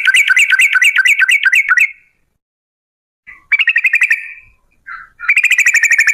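Yellow-vented bulbul (trucukan) giving rapid rolling trills, the long 'ropel' call, at about seven notes a second. The first bout ends about two seconds in, a shorter bout follows, and a second long trill begins near the end.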